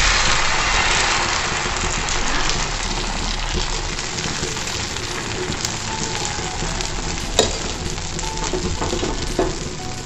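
Moong dal and sabudana dosa batter sizzling on a hot tawa as a ladle spreads it into a thin round. The sizzle is loudest just after the pour and eases off, with a sharp tap about seven seconds in.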